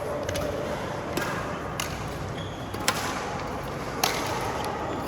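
Badminton rally: rackets striking a shuttlecock, a series of sharp hits about a second apart, the loudest two near the middle and about four seconds in, over steady hall noise.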